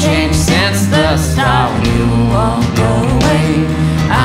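Song playing: a sung vocal melody over guitar, bass guitar and drums, with a steady beat.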